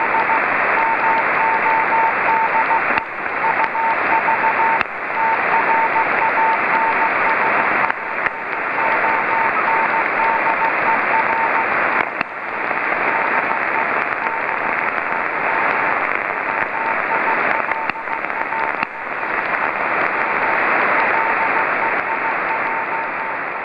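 Morse code (CW) beacon from the VO-52 amateur satellite's Dutch transponder, received on a Yaesu FT-817: a single steady tone keyed on and off in dots and dashes over loud receiver hiss. The hiss dips briefly several times.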